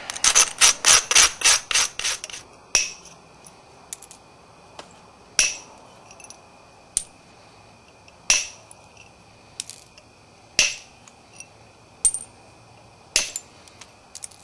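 An abrader stone scraping in quick strokes, about four or five a second, along the edge of a Florida agatized coral preform to grind and strengthen the striking platforms before flaking. After about two seconds the scraping stops and single sharp clicks follow every second or two.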